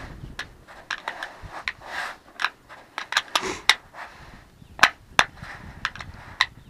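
Irregular sharp metallic clicks of a small hand wrench working the screws of a stainless drip rail on a squarebody Chevy truck's roof edge, metal on metal. Two louder clicks come close together a little under five seconds in.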